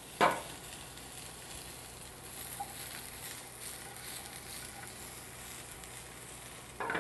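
Sliced mushrooms sizzling in a nonstick frying pan on a gas burner while the pan is shaken to toss them. A sharp knock, the loudest sound, comes just after the start, and a short clatter at the very end.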